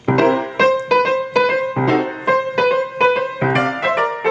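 Grand piano playing a lively passage of struck chords, about two or three a second, each ringing on until the next.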